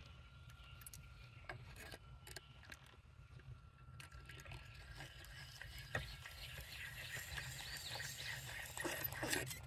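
Faint clicks of metal parts as a Timberline chainsaw sharpener and its carbide cutter are set on a saw chain, then a soft scraping that builds in the second half as the hand-turned cutter files a chain tooth.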